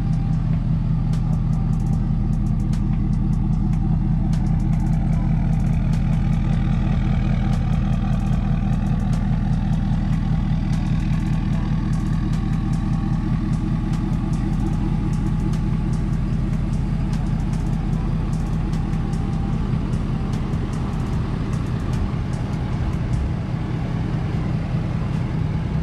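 Ford F-250 Super Duty's 6.7-litre Power Stroke V8 turbo-diesel idling steadily.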